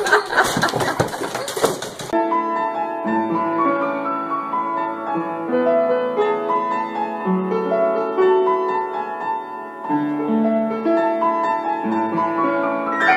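Noisy live sound cuts off suddenly about two seconds in, and piano music follows: a slow melody of held notes over a low accompaniment.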